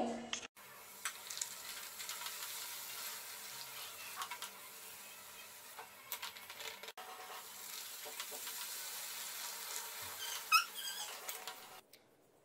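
Hot oil sizzling and crackling steadily as a puri deep-fries, with scattered small clicks. A few short high chirps sound near the end.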